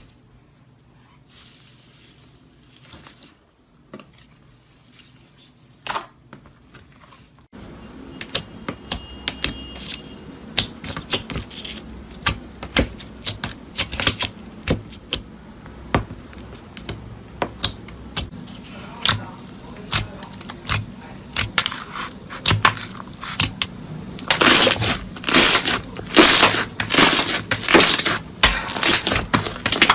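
Crisp crackling and clicking of a crunchy material being pressed and crushed. It is sparse and quiet at first, turns dense after a cut about seven and a half seconds in, and is loudest in the last few seconds.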